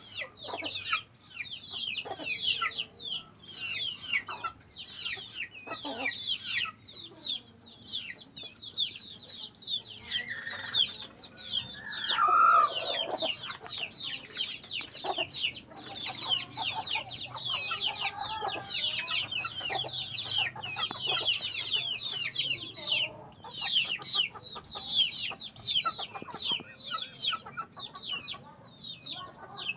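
Native chickens (ayam kampung) with a steady chorus of short, high, falling peeps and clucking, and one louder call about twelve seconds in.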